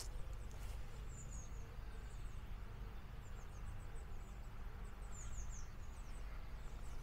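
Small birds twittering, with short high chirps coming in little clusters, over a steady low rumble.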